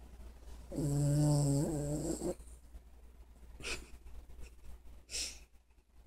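A sleeping chihuahua-pug mix snoring: one drawn-out pitched snore of about a second and a half near the start, then two short, breathy snores about a second and a half apart.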